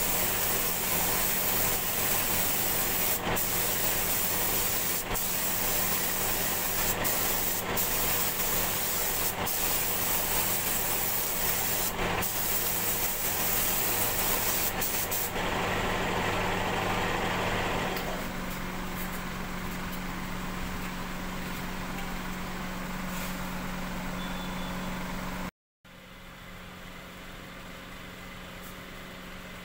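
Gravity-feed air spray gun hissing steadily as it sprays paint, over a steady machine hum. The hiss changes about halfway through and the hum thins a few seconds later. The sound cuts out for a moment near the end, then a quieter hiss resumes.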